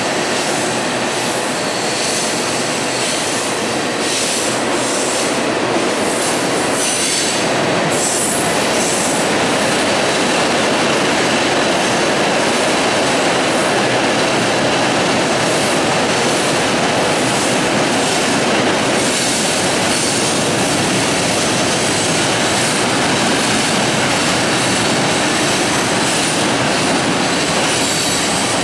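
Freight cars of a CSX manifest train rolling across a steel truss trestle: a steady loud rumble and rattle of wheels on the rails and bridge deck. High wheel squeal comes and goes in the first several seconds.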